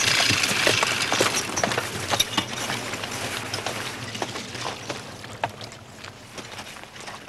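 Clinking of a working horse's harness with knocks from its hooves, fading away over several seconds.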